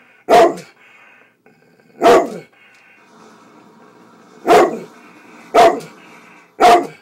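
Pet dog barking: five single loud barks a second or two apart. It is demand barking at its owner for food.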